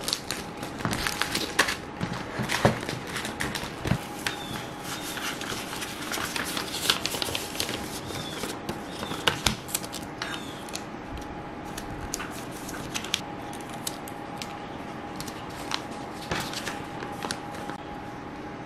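Rustling and crinkling of paper envelopes and plastic sticker sleeves being handled on a desk, with scattered sharp clicks and taps. The handling thins out in the last few seconds over a steady faint hum.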